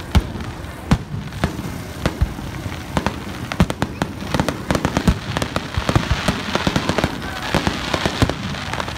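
Aerial fireworks going off: a string of sharp bangs from bursting shells, coming thicker and faster from about three seconds in.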